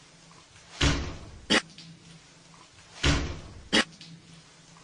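A door closing: two dull thuds, each followed less than a second later by a sharp click.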